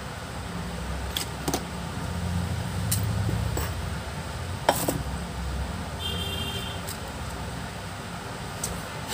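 A handful of sharp clicks from tweezers and small phone circuit boards being handled and set down on a workbench, over a steady low rumble. A brief high beeping tone comes in about six seconds in.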